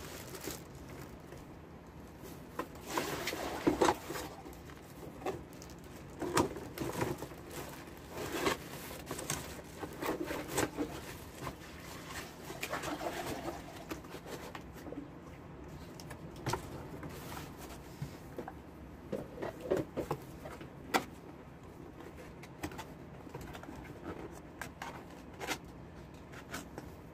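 Packaging being handled: a plastic bag rustling and a cardboard tool box being turned over and its flaps opened, in irregular bursts of crinkling with sharp clicks and taps.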